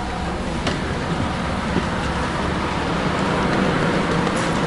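Steady ambience of a train standing at a station platform: a low hum under an even wash of noise, with a faint click less than a second in.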